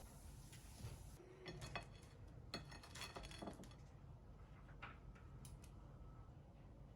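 Faint clinking of dishes and glassware: a handful of light taps, one leaving a short ringing tone.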